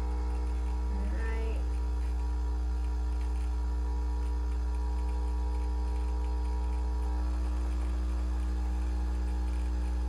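KOTLIE capsule coffee maker brewing a K-cup: its water pump runs with a steady low drone and a few steady higher tones over it. Some of the higher tones thin out about seven seconds in.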